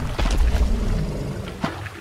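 Heavy footfalls splashing through shallow water over a deep low rumble, with two sharper splashes about a quarter second in and near the end, as armoured dinosaurs wade along a stream.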